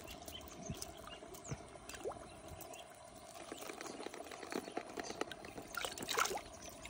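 Faint wet clicks and trickling as a handful of tiny live fish wriggle in cupped wet hands, over a faint steady hum.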